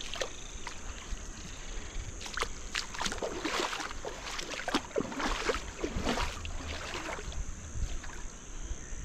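A steady, high-pitched insect drone over a low rumble, with a string of irregular scuffing, crunching noises through the middle few seconds.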